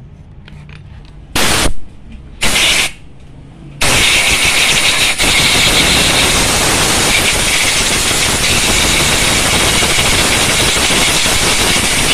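Compressed-air blow gun blasting into a motorcycle brake caliper: two short bursts, then a long steady hiss of air held for about eight seconds.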